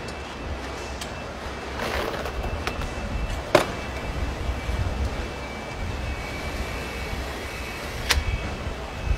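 Car assembly-line noise: a steady low hum of factory machinery, with a few sharp clicks and knocks. The loudest click comes about three and a half seconds in and another about eight seconds in.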